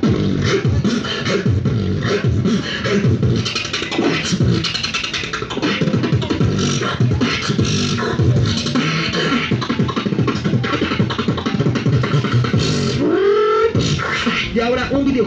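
Beatboxing amplified through a handheld corded microphone and speaker: a fast, continuous pattern of vocal kick drums, snares and hi-hat clicks, with a short pitched vocal glide near the end.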